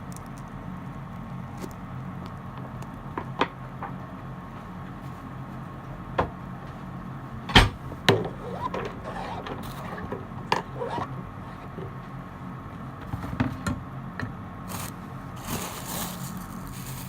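Kitchen knife cutting vegetables on a cutting board: scattered sharp knocks of the blade meeting the board, the loudest about seven and a half seconds in, with crisp crunching of the vegetable between strokes, over a steady low hum.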